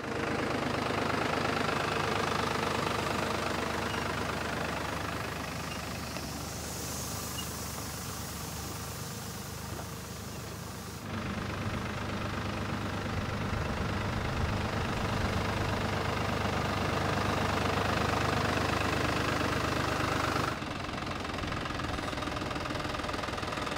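Orchard tractor engine running steadily while working a spray rig, with a hiss of spray about 6 to 10 seconds in. The engine sound jumps abruptly louder about 11 seconds in and drops again near the end.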